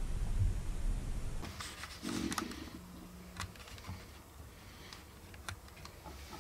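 Handling noise as a hand adjusts a small mounted camera: a low rumble, then after a sudden change scattered faint clicks and ticks.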